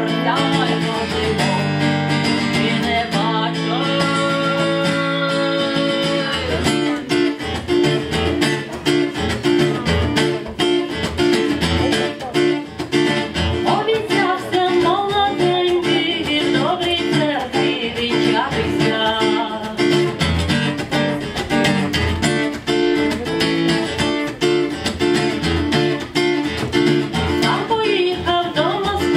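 A woman singing while strumming an acoustic guitar. The guitar holds long chords at first, and about six seconds in it changes to a steady, rhythmic strumming pattern under her voice.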